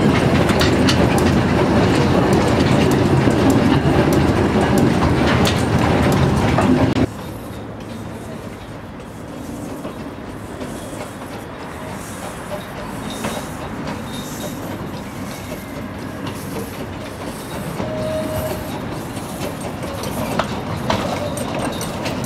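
Narrow-gauge Wren class steam locomotive and its open carriages running, heard loud and close from aboard the train. About seven seconds in the sound drops suddenly to the quieter running of the train coming round a curve. It grows louder as the train draws near, with a few clicks near the end.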